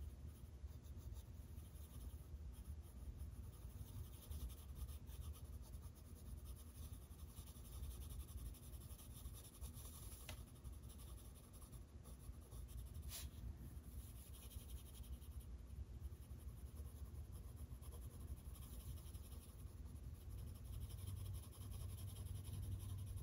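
Faint, steady scratching of a coloring tool on paper as an area is filled in blue with continuous back-and-forth strokes.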